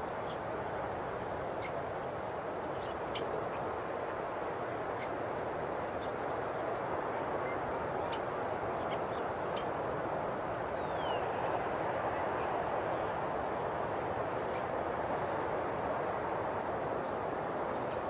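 Surf breaking on the shore of a bay, a steady wash of waves that swells a little past halfway. Short high bird calls come every few seconds over it, with one longer falling whistle just before the middle.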